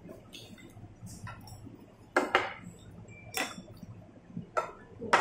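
Chopsticks and a metal spoon clinking against ceramic plates and bowls: a scattering of sharp, separate clinks, the loudest pair about two seconds in.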